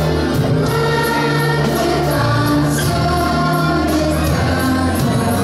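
Young children's choir singing a Christmas song over instrumental accompaniment with steady bass notes.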